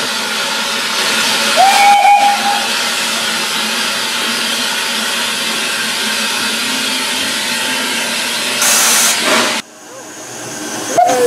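A Hunslet Austerity 0-6-0ST saddle tank steam locomotive hauls its train, heard from a carriage window as a steady rush of running noise and steam. About two seconds in, a short whistle rises quickly and holds for about a second. Near the end the running noise drops away suddenly, a steam hiss builds, and another brief whistle tone sounds.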